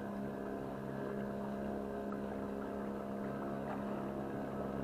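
Motorboat engine running steadily close by, an even droning hum that holds its pitch.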